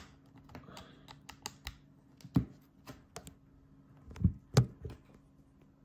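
Scattered small clicks and knocks from handling a feature phone and its USB cable on a rubber work mat. There are two or three louder thuds, about two and a half and four and a half seconds in.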